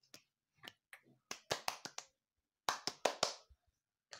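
Thin plastic bag being crinkled and shaken, in two bursts of crackling a little over a second apart, with a few lighter ticks before them.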